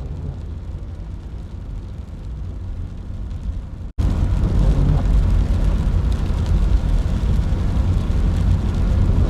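A deep, noisy rumble that builds gradually, then cuts off sharply about four seconds in and comes straight back louder and steady.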